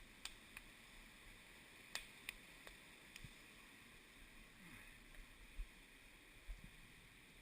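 Near silence: faint background hiss with a few scattered faint clicks.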